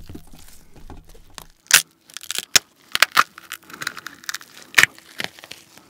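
Cooked king crab shell being torn apart by hand: a series of sharp cracks and snaps as the shell breaks, with a fainter crackling and tearing of shell and meat between them.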